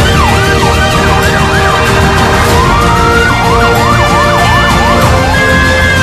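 Emergency-vehicle sirens over background music: a fast up-and-down yelp for the first couple of seconds, one slow rising wail about two and a half seconds in, then a quick yelp again.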